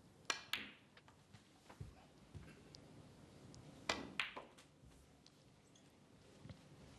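Snooker balls clicking in a hushed arena: two pairs of sharp clicks, one just after the start and one about four seconds in. Each pair is a cue tip striking the cue ball, then the cue ball hitting an object ball.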